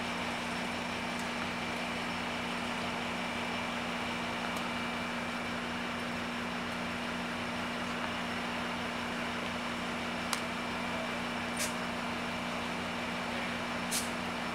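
Steady hum of an Amtrak California train standing at the platform: the diesel locomotive idling with its low throb and the head-end power and car ventilation running. Three short clicks come in the last few seconds.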